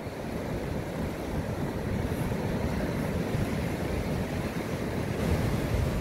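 Sea surf washing onto the shore in a steady rush, with some wind on the microphone. It grows a little louder near the end.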